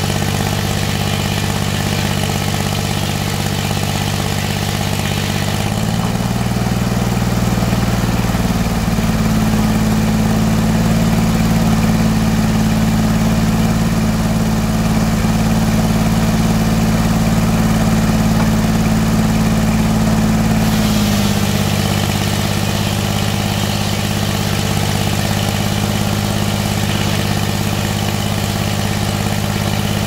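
Engine-driven circular sawmill running with a steady drone; from about six seconds in its tone rises and grows a little louder while the carriage takes the red pine log through the blade, then drops back to its earlier note about twenty-one seconds in.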